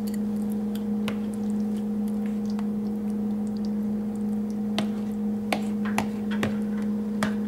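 Metal spoon tapping and scraping in a plastic container as soft mango pudding is spread, giving a few scattered sharp clicks. Under it runs a steady low hum.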